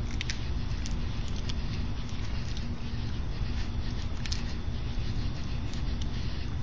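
Raccoons eating from a food tray floating in a kiddie pool: scattered sharp clicks and crunches of chewing and handling food, over a steady low background rumble.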